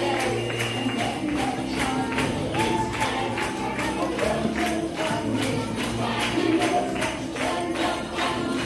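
Upbeat music with a quick, steady percussion beat and voices singing, playing for a costumed character parade through the dining room.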